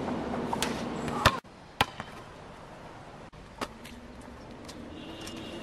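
Basketball bouncing on an asphalt court: a handful of irregular bounces, the loudest about a second and a quarter in.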